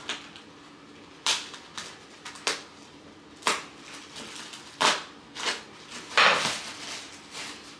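Packing material in a cardboard box being handled and pulled apart by hand: a string of about eight short, sharp noises, roughly one a second, the longest about six seconds in.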